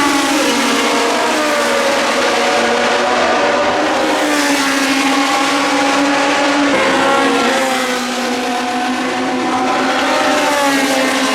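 Historic racing cars at full racing speed, several engine notes overlapping and rising and falling in pitch as the cars pass, shift and brake.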